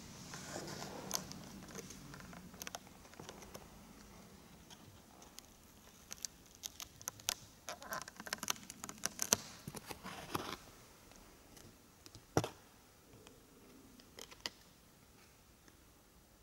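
Faint, irregular small clicks and taps, like something small being handled. They come thickest in the middle, with one sharper click a few seconds before the end.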